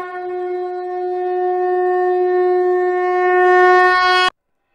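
Conch shell (shankh) blown in one long, steady note that swells slightly and cuts off abruptly about four seconds in.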